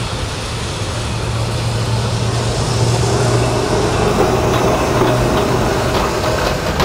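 Electric tram running past, its low hum and running noise growing louder toward the middle. A higher whine joins about halfway, with a few sharp clicks in the second half.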